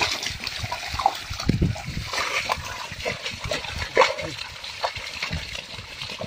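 Irregular splashing and sloshing of water and mud as a bull drags a plough through a flooded paddy field.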